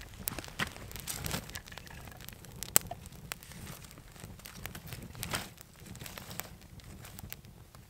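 Small campfire of birch bark and thin sticks crackling and popping, with one sharp pop about three seconds in. About five seconds in, a handful of thin sticks is laid on the fire with a rustle and clatter.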